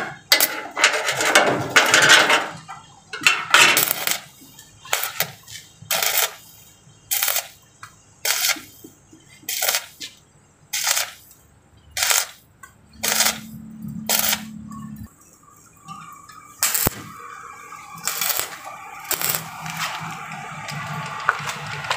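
Electric welding arc crackling in short bursts, roughly one a second, as a steel car-roof frame is stitch-welded overhead in short tacks. Later comes a low steady hum lasting a couple of seconds.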